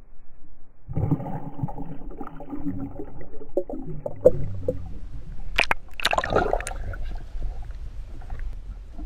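Water sloshing and gurgling, heard from underwater, as a hand moves a bass through the water and lets it go. Sharp splashes come a little past the middle.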